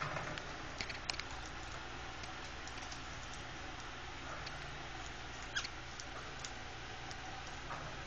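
Budgerigars pecking and cracking seed at a feeding dish: scattered small clicks and crackles over a steady low hum, the sharpest clicks about a second in and again past the five-second mark.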